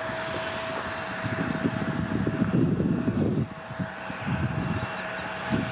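Bombardier CRJ-900's rear-mounted GE CF34 turbofans running at taxi power: a steady jet whine with one constant tone. Wind buffets the microphone in irregular low gusts.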